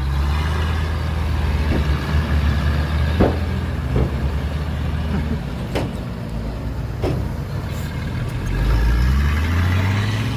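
Heavy diesel earthmoving machinery running, with several sharp knocks in the middle. The engine revs up, rising in pitch, near the end.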